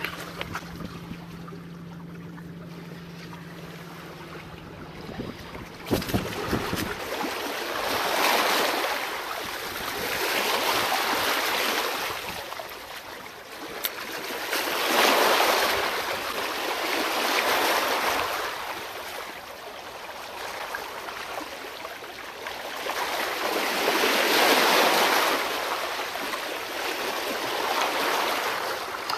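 Small waves washing against shore rocks, swelling and fading every few seconds. The first several seconds hold a steady low hum instead, ended by a couple of knocks.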